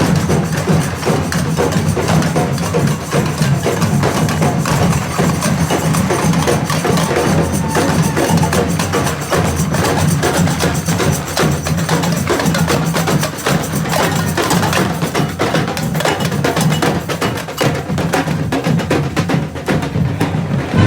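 Drums and percussion playing a dense, continuous beat, with a steady low tone underneath.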